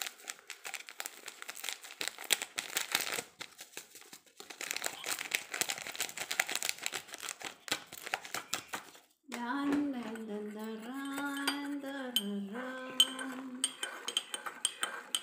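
A spoon clinking and scraping in a ceramic mug, with a packet crinkling, as instant coffee and powdered milk are spooned in and stirred. About two-thirds of the way through the rattling stops and a woman hums a short tune for a few seconds.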